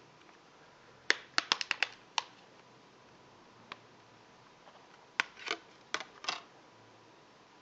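Plastic back cover of a Samsung Galaxy S3 being pried off by hand, its clips unsnapping: a quick run of sharp clicks about a second in, a single click near four seconds, then another cluster of clicks and scrapes around five to six seconds as the cover comes free.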